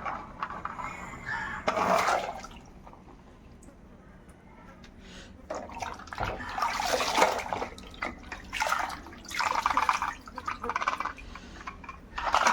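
Water splashing and pouring in irregular bursts as toys are washed, loudest about two seconds in, through the middle, and near the end.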